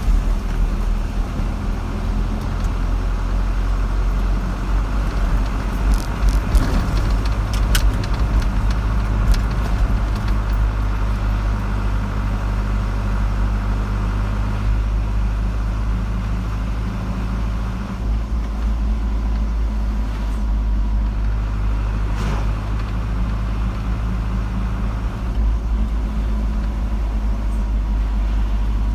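Car driving along a road: a steady low rumble of engine and tyre noise, with a few brief light knocks or ticks.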